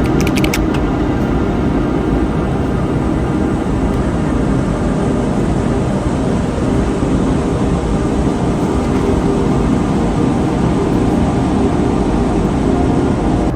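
Steady, loud rumbling drone of a running vehicle, with a few faint clicks at the very start.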